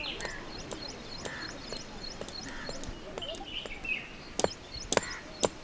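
Small birds chirping in quick, repeated high notes over a quiet outdoor background, with three sharp, evenly spaced knocks about half a second apart near the end.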